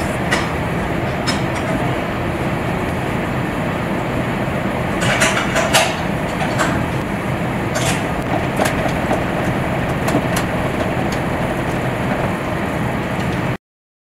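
Steel mounting plate of a keypad door knob being fitted to a door and screwed down with a screwdriver: a scattering of sharp metal clicks and clatters, bunched in the middle, over a steady hiss.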